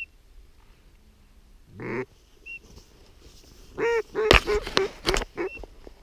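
Duck quacks: a single quack about two seconds in, then a quick run of quacks over the next second and a half, with two sharp knocks among them.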